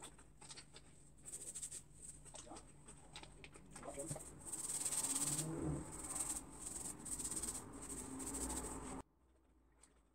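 Fingers rubbing and scratching through hair as oil is worked into the scalp: a faint scratchy rustling with scattered clicks. It grows louder in the second half, then cuts off suddenly near the end.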